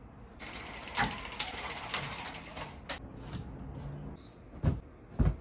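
Horizontal slat window blinds being raised by their pull cord: the slats clatter and the cord mechanism rattles for about two and a half seconds. Then two short dull thumps near the end.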